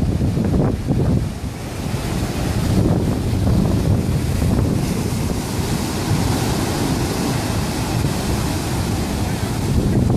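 Ocean surf breaking over black lava rocks and washing through rock pools, a steady rushing wash whose hiss of foam grows brighter about halfway through. Wind buffets the microphone throughout.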